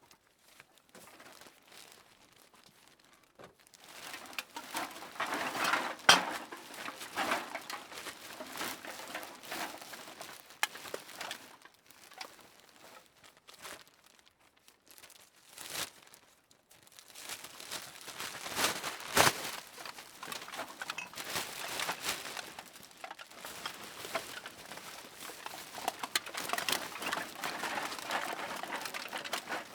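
Cans being dropped into a plastic bag: the bag crinkles and rustles in bursts, with sharp clanks of the cans, the loudest about six seconds in and again about nineteen seconds in, and quieter pauses between the bursts.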